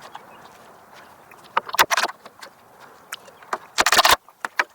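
Short clattering knocks and clicks of hardware and tools being handled during assembly: a small cluster about two seconds in, then a louder rattling burst near the end.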